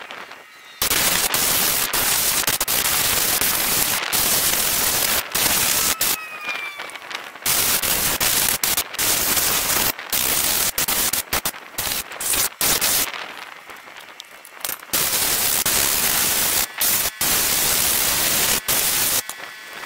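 Handheld spot blaster firing coal slag abrasive on compressed air against rusty car suspension parts: a loud, harsh hiss in long bursts, cut by short breaks as the trigger is let off, with a quieter stretch about two-thirds of the way through.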